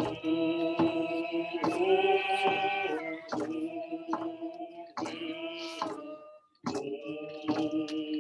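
Voices singing a slow prayer song to a steady drum beat, about one stroke every 0.8 seconds. The singing breaks off briefly between phrases about three seconds in and again around six and a half seconds in.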